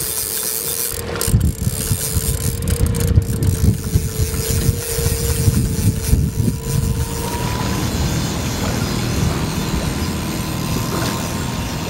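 Mercury outboard motor running at trolling speed, with a steady whine that fades about seven seconds in, over a low, uneven rumble.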